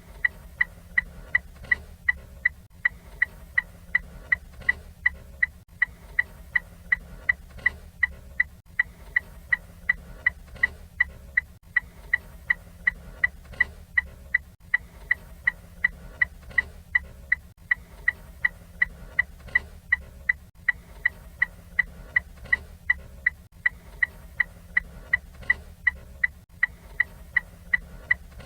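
Ford Fiesta turn-signal indicator ticking at an even rate, about two to three sharp ticks a second, over a faint low hum.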